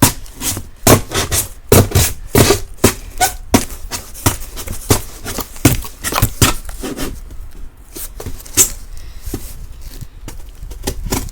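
Knife blade striking and chopping at a surface over and over, as a string of sharp, irregular knocks. The knocks come thick and fast for about seven seconds, then more sparsely.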